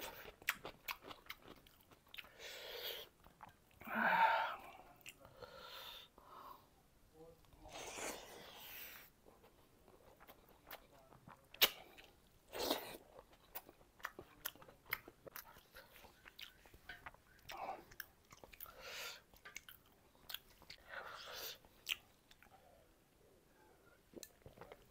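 A person chewing and crunching food close to a clip-on microphone: crisp bites of raw cucumber and wet chewing of rice and curry, in irregular spurts with short pauses between.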